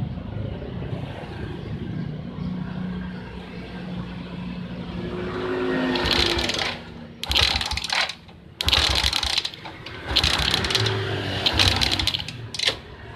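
Spark test on a Suzuki Smash's single-cylinder four-stroke engine, with a new CDI fitted: the engine is cranked over in about six short bursts, and the plug lead held just off the crankcase lets the spark snap across in rapid crackling clicks. Before the bursts begin, about six seconds in, there is only a low steady hum.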